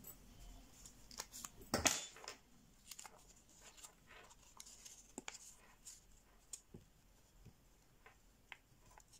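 A sheet of 80 g/m² printer paper being folded and creased by hand: faint scattered crinkles and small taps, with one louder rustle near two seconds in.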